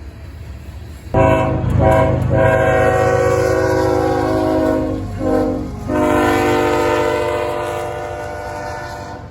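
Diesel locomotive air horn sounding a chord of several notes, cutting in suddenly about a second in over the rumble of the train: two short blasts, a long one, a short one, then a long blast that fades away near the end.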